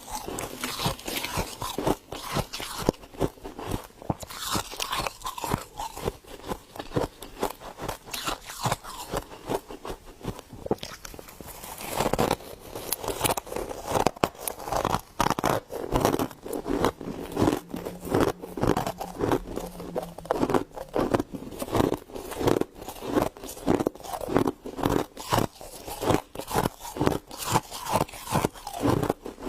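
Freezer frost being chewed: rapid, crisp crunching bites, several a second without pause.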